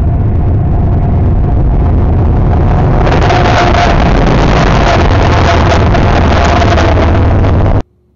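CSX AC6000CW diesel-electric locomotive and its trailing units running hard as they approach and pass close by, a heavy engine rumble that grows into a louder rumble with wheel and rail clatter about three seconds in. The sound cuts off abruptly near the end.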